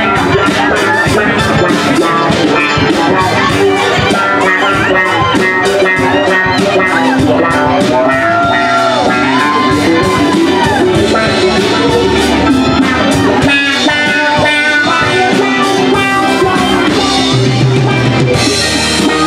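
Live band playing an instrumental passage on saxophone, guitars and drum kit, with a few sliding bends in the lead line a little after the middle.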